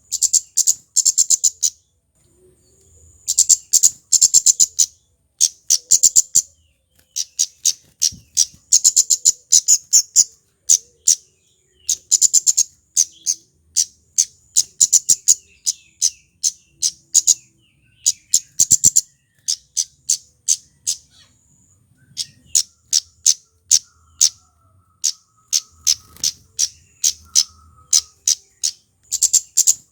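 Male flowerpecker (kemade) calling: quick runs of very high, sharp, ticking notes, one burst after another with short pauses between.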